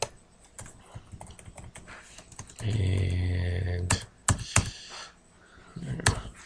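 Computer keyboard keys and mouse clicks, scattered taps with a few louder ones in the second half. Midway a man's voice holds a low, steady 'hmm' for just over a second.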